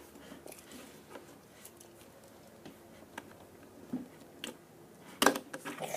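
Tech Deck fingerboard clicking and tapping on a hard surface: scattered light clacks, with a sharper, louder clack about five seconds in.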